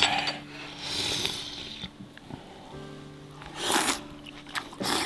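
Background music of long held notes, with two short noisy eating sounds from someone having a bowl of beef and vegetable soup, one about a second in and one near the four-second mark.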